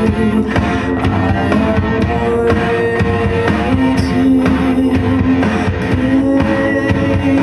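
Music with guitar and a drum beat playing loudly through a Fenda F&D F550X 2.1 speaker system with its subwoofer.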